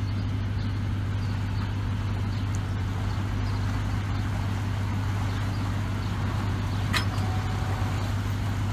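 An engine running steadily with a low, even hum, and a single sharp knock about seven seconds in.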